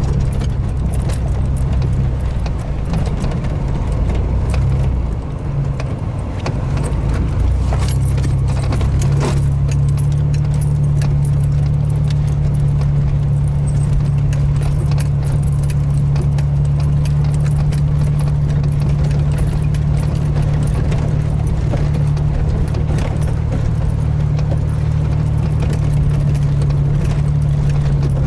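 Chevy S-10 Blazer engine running at a steady low drone, heard from inside the cab while driving a rough dirt trail, easing off briefly about five seconds in. Frequent small clicks, knocks and rattles of the cab and loose items as the truck bumps over the uneven track.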